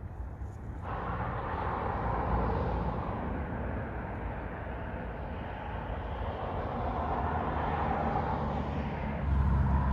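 Distant engine noise: a steady rushing sound that comes in about a second in and swells and eases twice, over a low rumble that grows heavier near the end.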